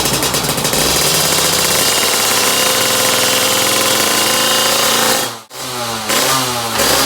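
Two-stroke motorcycle engine with an AHM aftermarket expansion-chamber exhaust, running at high revs with a rapid, rattling exhaust note. The sound cuts out suddenly about five and a half seconds in, then the engine is revved up and down.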